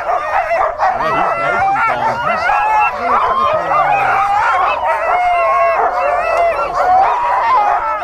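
Many sled dogs yelping, barking and howling together in a continuous overlapping din: the excited noise of dog teams held at the start of a sled dog race.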